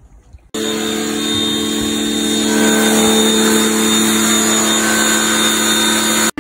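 Pressure washer running steadily: the motor and pump hum under the hiss of the water jet spraying a concrete floor. It starts suddenly about half a second in and stops suddenly just before the end.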